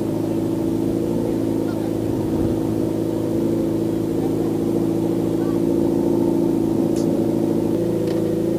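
Motorcycle engine running at a steady speed, one even drone with no change in revs.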